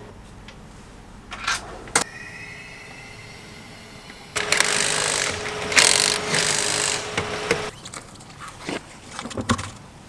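A handheld power tool running for about three seconds with a steady whine, revving up in two surges. It is preceded by a couple of sharp clicks and followed by a few scattered knocks, typical of vehicle service work.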